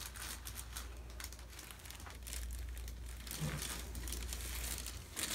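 Crinkling and rustling as a patient turns over on a chiropractic table: a dense run of small crackles, with one louder click near the end.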